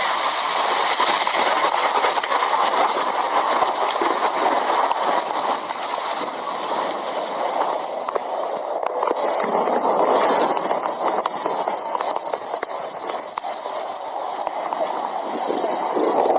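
Thunderstorm noise: a loud, steady rushing sound that swells and eases slowly, changing in character about nine seconds in.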